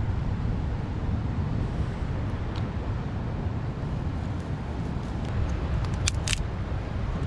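Steady low wind rumble on the microphone, with a few sharp crackles as a bundle of dry grass tinder catches fire; the loudest pair comes about six seconds in.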